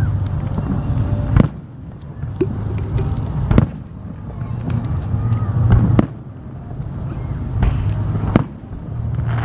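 Aerial fireworks shells bursting in a series of sharp bangs, one every second or two, over a steady low rumble.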